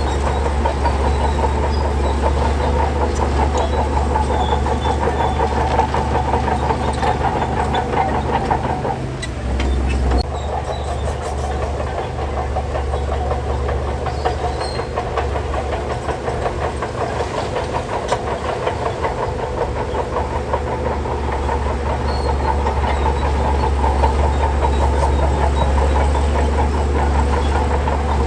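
Crawler bulldozer running: a steady diesel engine drone with rapid metallic clatter from its steel tracks. The engine note shifts briefly about nine seconds in.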